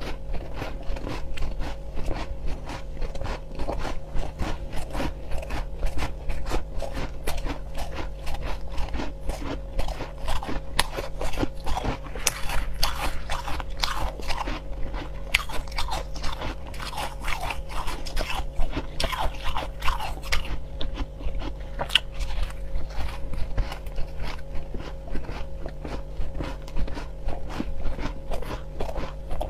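Close-miked crunching and chewing of powdery crushed ice eaten by the handful: a continuous run of crisp crackles, densest about halfway through, over a steady low hum.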